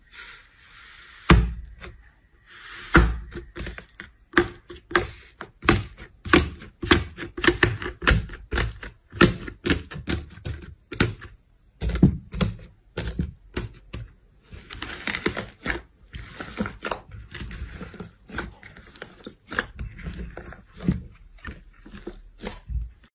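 Thick pink slime in a tray being pressed, torn and kneaded by hand, giving an irregular string of sharp clicks and pops, a few a second, with softer squishing between.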